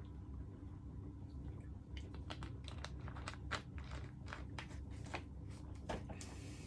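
Early-1970s Wing TAT-built Martec 48-inch ceiling fan running at medium speed with a steady motor hum. Irregular sharp clicks and ticks come from about two seconds in, on a fan the owner describes as loud, unbalanced and with bearing noise. A brief hiss starts near the end.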